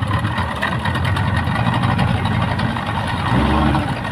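Speedboat engine running steadily under a heavy load, with a brief louder, deeper swell about three and a half seconds in.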